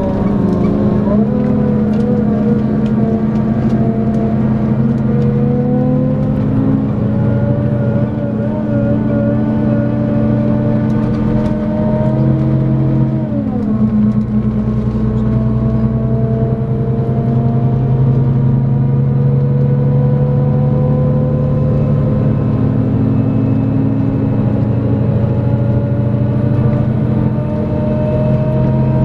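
Scania K410EB6 coach's diesel engine and driveline accelerating, heard from on board: whining tones rise steadily through a gear for about twelve seconds, fall sharply at a gear change about halfway, then climb again until another change near the end.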